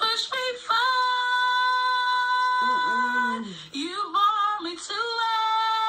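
A single voice singing unaccompanied and loudly: one long high note held for about two and a half seconds, a few lower sliding notes, then another long high note held near the end.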